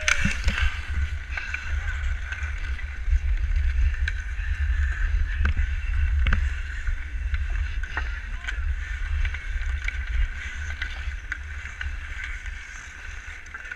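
Ice-skate blades scraping and gliding on outdoor pond ice during pond hockey play, with a steady low rumble on the player-worn camera's microphone. A few sharp clacks of sticks striking the puck or ice stand out.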